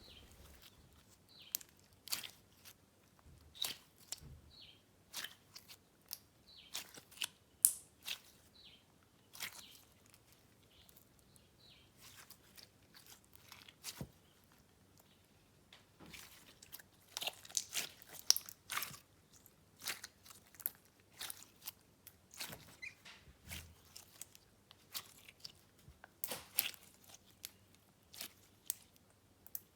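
Clear slime mixed with Fimo slices and clay shavings being squished and stretched by hand, giving quiet, irregular clicks and crackles, thicker in places.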